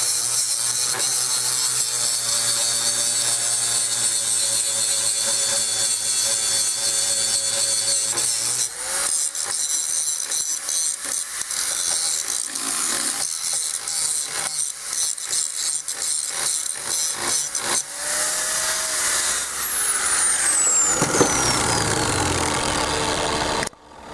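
Angle grinder with a cutoff wheel cutting through steel, steady at first and then choppy and uneven as the wheel bites. Near the end comes a falling whine as the grinder winds down.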